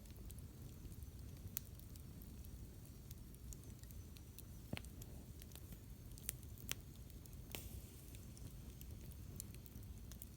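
Campfire crackling faintly, with a handful of sharp wood pops scattered irregularly over a steady low background rumble.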